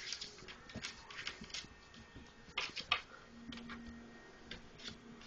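Labrador puppies moving about: quick, irregular small taps and scuffles of paws and claws. A faint low hum comes in a little past the middle.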